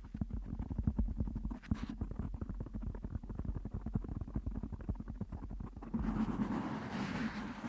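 Rapid, rough scratching directly on a microphone, heard as a dense run of close-up scrapes and rumbles. About six seconds in it changes to a more continuous rubbing scrape.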